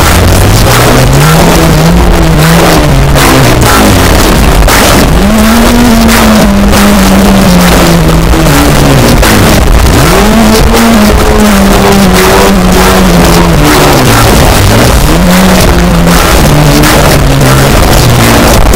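Extremely loud, heavily distorted extreme-music track: a dense wall of noise with a low pitched tone that slides up and back down in long arcs every few seconds.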